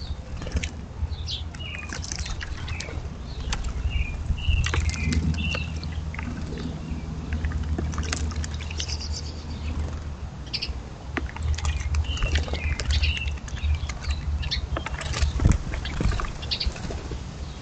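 American robins and house sparrows bathing in a bird bath: repeated splashing and wing flapping, with short chirps scattered throughout and a low steady hum underneath.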